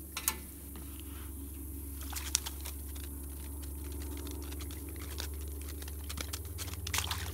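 A wire-mesh fish basket being hauled up out of the water on a rope: water splashing and dripping off it, with many light clicks and rattles from the wire mesh and the fish inside. A steady low hum runs underneath.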